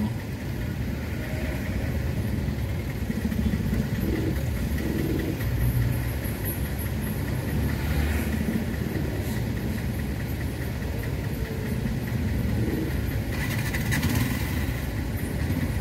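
Motor vehicle engine running steadily, with a low rumble.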